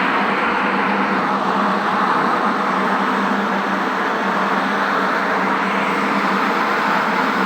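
Steady industrial machinery noise: an even rush with a constant low hum underneath, unchanging throughout.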